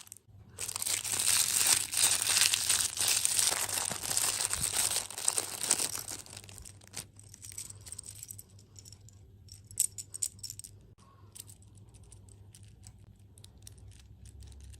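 Plastic food packaging crinkling and rustling as it is handled and opened for about the first six seconds, then scattered light clicks and small rattles.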